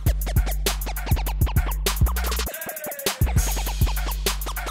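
Channel intro song: music with a fast, steady drum beat over a bass line; the bass cuts out for a moment about halfway through, then the beat comes back in.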